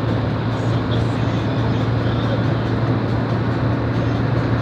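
Steady road and engine noise inside a moving vehicle's cabin, with a strong constant low hum.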